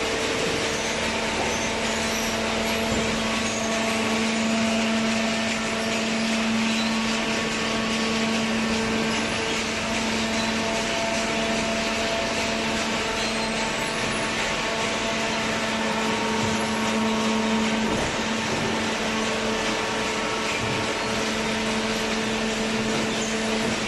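Hydraulic baler running: a steady mechanical hum with a low droning tone from the motor and hydraulic pump, the drone easing off for a moment near the end.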